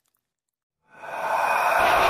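Dead silence for about the first second, then horror-style background music fades in as a steady, dark, hissing drone. A low rumble joins it near the end.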